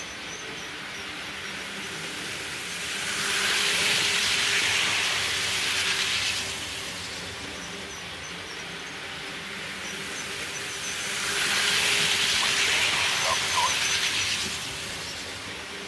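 HO scale model trains running on the layout track: a steady rolling hum, with a hissing rush of wheels on rails that swells and fades twice, about eight seconds apart, as trains pass close by.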